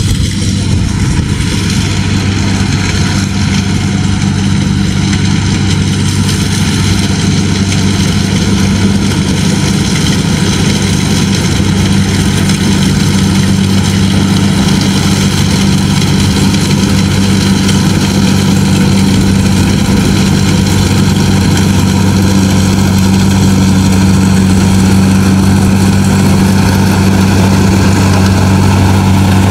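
Kubota DC-70G Plus combine harvester running at a steady, constant engine drone, growing slightly louder through the stretch.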